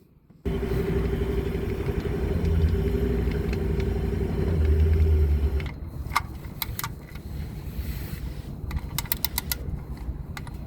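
A motor vehicle's engine running steadily, with a low rumble and a held hum that swell for a moment and then drop away a little past the middle. After it come scattered light clicks and rattles.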